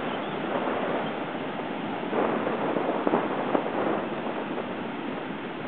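Large hurricane-driven surf breaking and washing up the beach, a steady wash of noise that swells louder for a couple of seconds in the middle.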